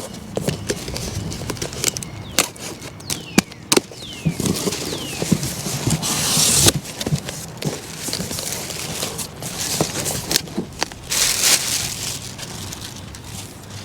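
A cardboard shipping box being opened and unpacked by hand: packing material handled with many sharp clicks, knocks and crinkling, and two longer rasping tears, about six seconds in and about eleven seconds in.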